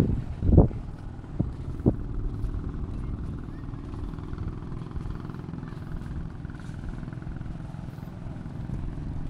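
A steady, low engine drone mixed with rumble, with a few short thumps in the first two seconds.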